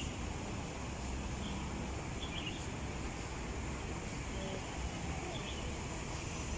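Steady outdoor background rumble with a few short, faint bird chirps scattered through it.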